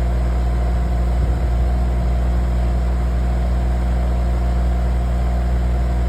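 Cat excavator's diesel engine running steadily at a constant speed, a loud, even drone with no change in pitch.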